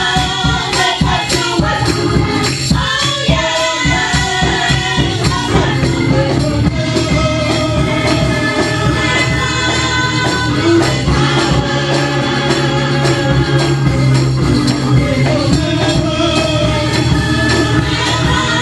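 Church choir singing a gospel song with instrumental backing, a hand-held tambourine jingling in time with the beat.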